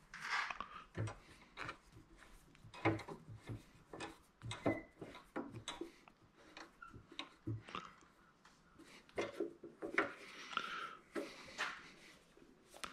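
Handling noise of a square wooden block on a wood lathe: irregular knocks, taps and rubbing of wood against the lathe's metal bed and fittings, the loudest knocks about three and ten seconds in. The lathe motor is not running.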